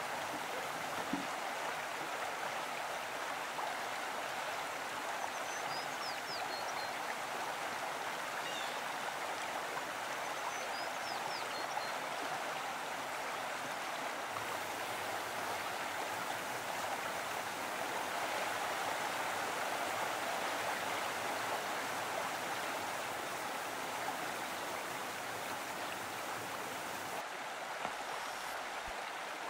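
A mountain stream running steadily with an even rush of water, with a few faint high chirps in the first half. Near the start a knife knocks twice on a wooden cutting board.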